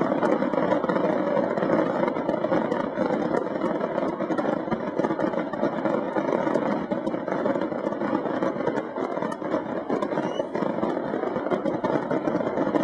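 Dense barrage of aerial fireworks shells bursting one on another, the reports running together into a continuous din with fine crackling throughout.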